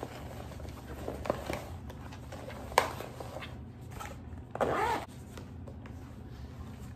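Zipper on a folding solar panel's fabric carrying case being worked, with handling clicks and rustles. The loudest click comes a little under three seconds in, and a half-second zip run about four and a half seconds in.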